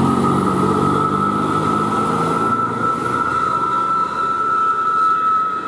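Tour bus climbing a steep hill: engine running hard under load, with a steady high-pitched whine over the low rumble.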